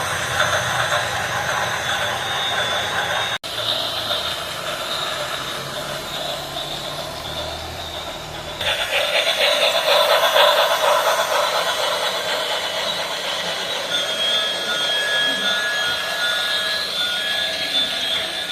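Train running sounds from a model railway: continuous mechanical running noise, with a sudden break about three seconds in and a louder stretch from about nine seconds. Steady high tones come in during the last few seconds.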